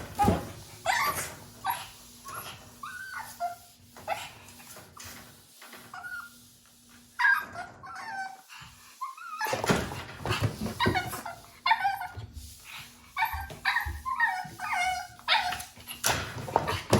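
Japanese Chin puppy giving short, high-pitched calls with bending pitch. They come scattered at first, then in a quick run from about ten seconds in.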